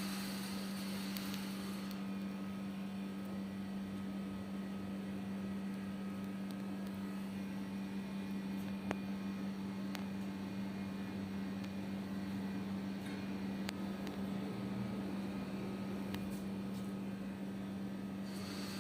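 A steady low electrical-sounding hum, with a few faint clicks about halfway through.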